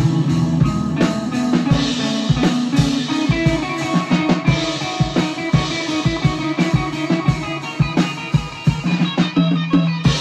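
Live improvised rock-style jam: an electric guitar, a drum kit and a trumpet play together, with the drums keeping a steady run of hits under sustained guitar and horn notes.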